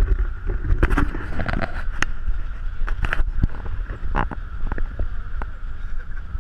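Riding on the roof of a moving jeepney: wind buffeting the microphone in a low rumble, with a steady hum and sharp rattles and knocks scattered throughout as the vehicle jolts along the rough road.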